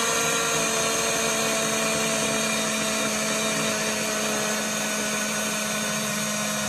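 BlendJet portable blender running steadily as it mixes oat milk and protein powder, liquid only with no ice yet: an even motor whine with a steady hum over a whirring hiss.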